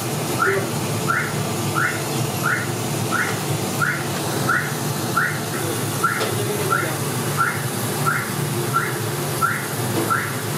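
An electronic alarm beeping over and over: a short rising chirp about every two-thirds of a second, over a steady low hum.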